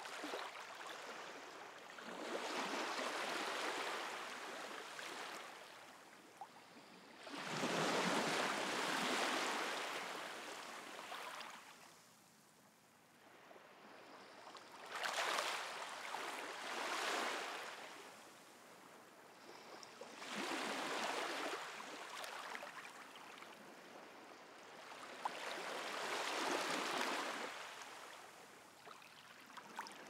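Small sea waves washing onto the shore, each one a hiss that swells and then fades away, about five in a row, one every five or six seconds.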